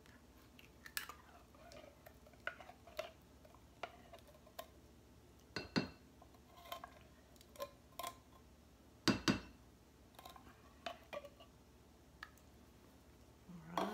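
Silicone spatula scraping thick condensed soup out of a metal can into a glass bowl: scattered faint clicks and taps, with two louder knocks, one near the middle and another a few seconds later.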